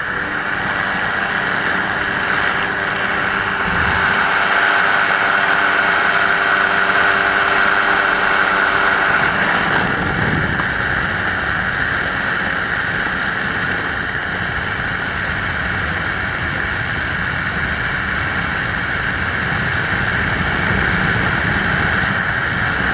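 Microlight aircraft's engine and propeller running steadily in flight, with wind rushing over the microphone.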